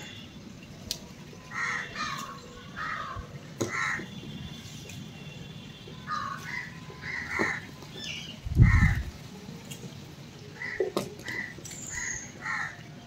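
Crows cawing repeatedly, short calls in loose runs. A short low thump a little past halfway is the loudest sound.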